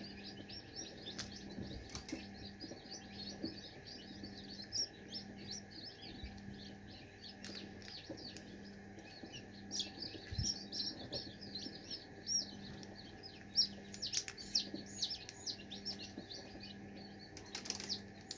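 A brood of newly hatched chicken chicks peeping continually in short high cheeps, with a few light clicks as eggshell is picked away by hand from a chick stuck in its egg.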